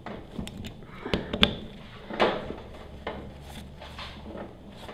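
Socket ratchet tightening bolts on an aluminium axial cam pressure washer pump, with a few scattered clicks and metal knocks as the ratchet is worked.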